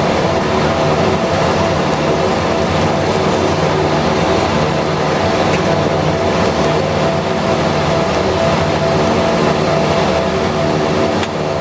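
Twin turboprop engines of a BAe Jetstream 31, Garrett TPE331s, running steadily as the aircraft taxis, heard from the cockpit. Their steady drone is made up of several held tones over a rushing noise.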